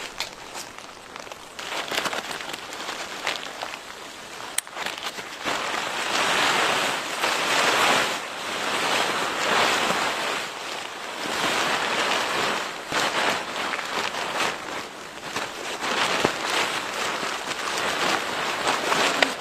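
Strong blizzard wind blowing in gusts that swell and fade every few seconds, with occasional sharp clicks.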